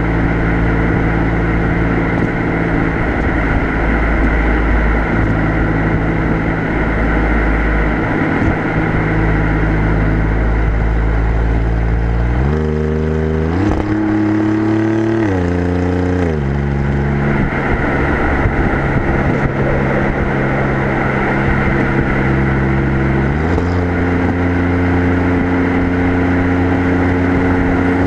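Alfa Romeo Giulia Quadrifoglio's twin-turbo V6 exhaust at a steady motorway cruise, heard from the rear of the car over wind and road noise. About halfway through, the engine note jumps higher in quick steps and drops back about three seconds later; it steps up again a few seconds before the end.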